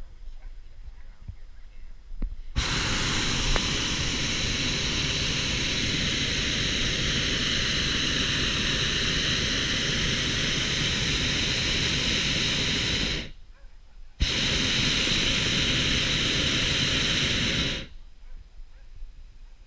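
Hot air balloon's propane burner firing: a loud, steady rushing blast of about ten seconds starting a few seconds in. It cuts off briefly, then fires again for about four seconds and stops.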